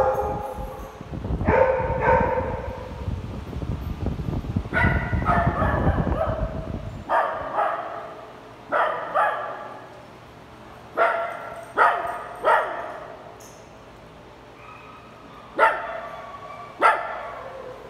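Small dogs barking: drawn-out barks over a low rumble on the microphone in the first few seconds, then about eight short, sharp barks, some in quick pairs.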